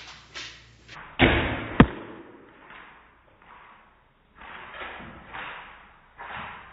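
Nerf Elite Triad EX-3 spring blaster firing a foam dart: a sudden thunk about a second in, then a sharp click half a second later. Fainter handling noises follow.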